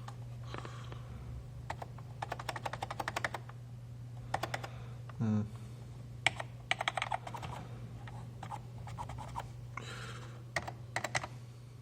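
Keys being typed on an old computer keyboard under test: three bursts of quick key clicks with single presses between them, over a steady low hum. The keyboard is not registering the keystrokes.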